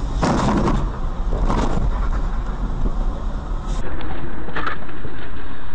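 Car interior audio from a dashcam: a steady low rumble of engine and road, with two short rushes of noise in the first two seconds. About four seconds in, the sound changes abruptly to another car's recording with a similar steady rumble.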